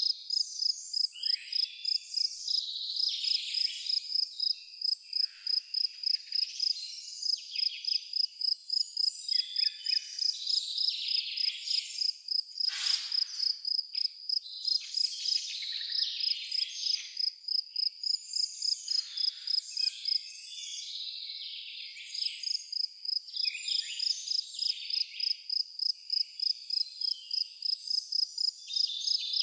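Nature ambience: an insect chirps high and steadily at about three a second, with many birds calling over it. The chirping stops for about a second two-thirds of the way through.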